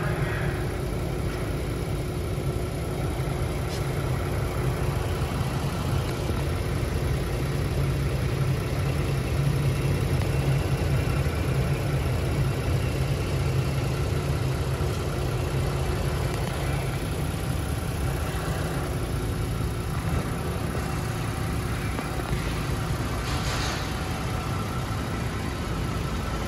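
Ford Transit AWD van running with its wheels turning: a steady low engine and driveline hum, a little louder about halfway through.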